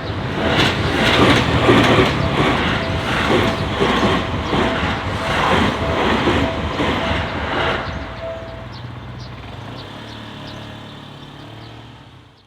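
A train passing over a level crossing, its wheels clattering rhythmically over the rail joints, a little under two strokes a second. The crossing bell rings until about eight and a half seconds in, and the train noise then fades away.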